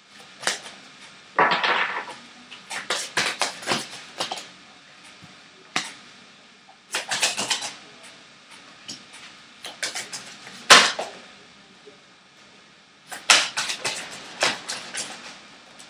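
A deck of divination cards being shuffled by hand, the cards clicking and slapping against each other in several short flurries of rapid clicks, with one louder single snap about eleven seconds in.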